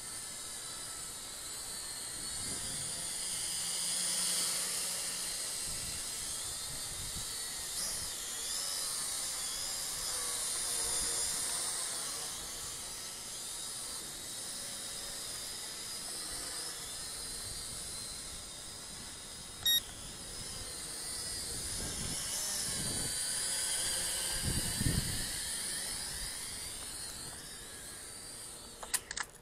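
FQ777 Mantis toy quadcopter's small motors and propellers whining in flight, the pitch wavering as it is pushed around by the wind. A short beep about two-thirds of the way through, and wind gusts buffeting the microphone shortly after.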